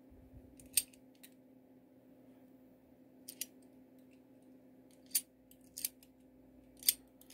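Short, sharp metallic clicks, about six spread irregularly, as a key is turned back and forth in a cutaway cabinet lock and its cylinder and bolt mechanism snap into place.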